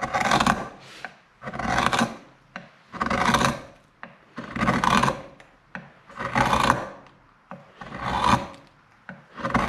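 Carving gouge pushed by hand through a hard elm bowl blank, cutting across the grain. About six slicing cuts come one every second and a half or so, each a short scraping stroke as a shaving curls off.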